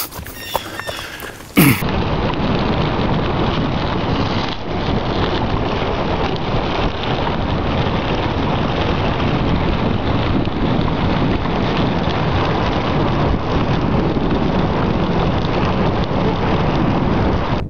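Steady, loud rushing noise of wind buffeting the microphone of a camera moving along a gravel road, starting abruptly about two seconds in after a few sharp knocks.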